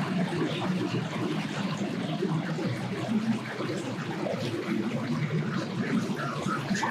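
A small boat's outboard motor running at low speed as the boat comes in, a steady low hum mixed with water noise.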